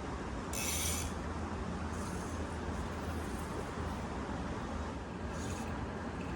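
Steady rushing of a stream's flowing water, with a few brief high-pitched bursts about half a second in and again near the end.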